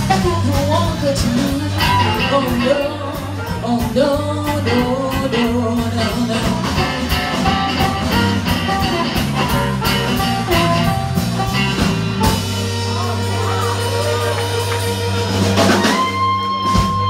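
Live blues band of blues harp, electric guitars, bass guitar and drums playing a shuffle. About twelve seconds in, the band holds the closing chord. Near the end the harmonica holds one long high note.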